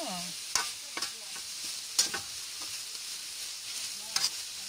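Shredded papaya sizzling in a metal wok as a spatula stirs it, with a steady frying hiss and several sharp knocks and scrapes of the spatula against the pan, the loudest about two seconds in.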